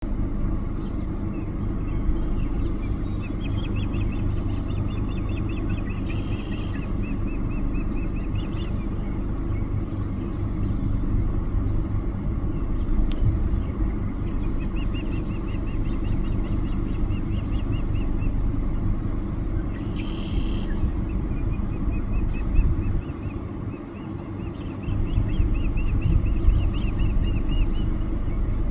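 Eagles calling: several runs of rapid, high-pitched chittering notes, heard over a steady low rumble.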